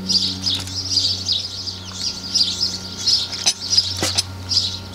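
Small birds chirping and singing continuously over a steady low hum. A couple of sharp clicks come about three and a half and four seconds in as a knife works through the chicken on foil.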